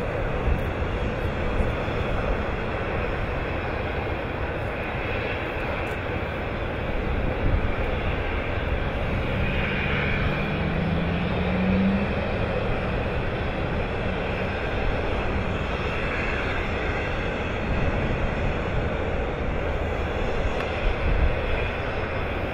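Steady, loud mechanical rumble, with a short rising hum about ten seconds in.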